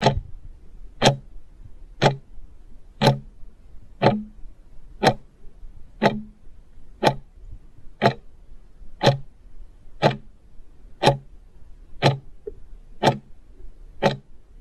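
Clock-tick countdown sound effect, ticking evenly once a second, marking the time allowed to answer a quiz question.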